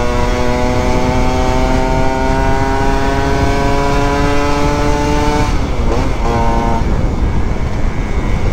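Two-stroke motorcycle engine running on the move, its note rising slowly as the bike gathers speed, then breaking off about five and a half seconds in and coming back only in short stretches. Wind rushes on the microphone throughout.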